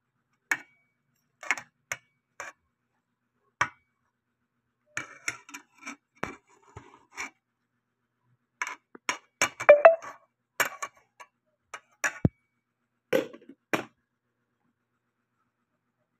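Metal spoon clinking and scraping against the side of a metal cooking pot as noodles are stirred, in short, irregular strokes, most dense and loudest about ten seconds in.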